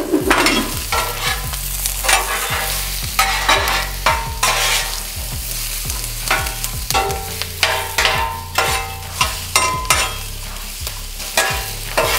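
Chopped onion, bell pepper and carrot sizzling in oil on a hot flat-top griddle. Two metal spatulas scrape and clank against the griddle top as they toss the vegetables, many strikes leaving a short metallic ring.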